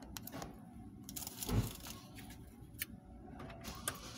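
Scattered small clicks and rustles of things being handled inside a car, with a dull thump about a second and a half in.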